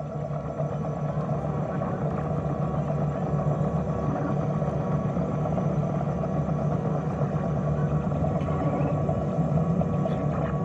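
A steady, low electronic drone soundtrack with several held tones layered over one another, holding level without a break.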